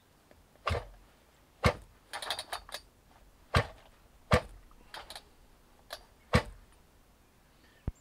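Husqvarna 181 SE chainsaw's recoil starter being pulled slowly against heavy compression: five sharp clacks spread out irregularly, with a short metallic rattle between the second and third. The engine does not fire; the saw is a hard starter.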